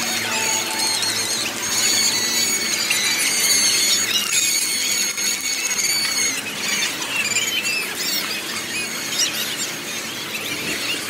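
Street parade sound played back at four times speed, so voices and crowd noise become a continuous jumble of high, squeaky chirps and squeals.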